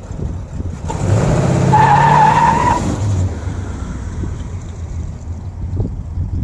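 1966 Pontiac Star Chief V8 running on a freshly fitted 650 Edelbrock AVS2 carburetor; about a second in it revs up hard, with a high squeal of tyres for about a second, then settles back to a steady run.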